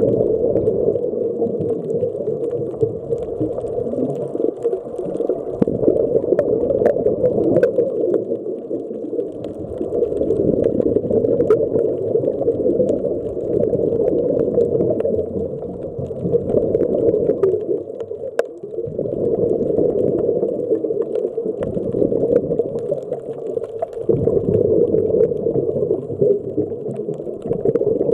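Muffled underwater rushing and bubbling of a scuba diver's exhaled regulator bubbles and moving water, heard through an action camera's waterproof housing. It swells and eases in slow cycles every few seconds, with scattered faint clicks.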